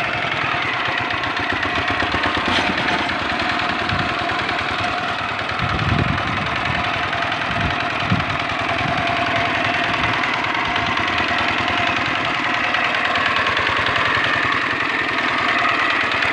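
Dongfeng single-cylinder diesel engine of a Quick Impala two-wheel hand tractor running steadily under load as the tractor harrows a flooded rice paddy. A few low thumps come about six to eight seconds in.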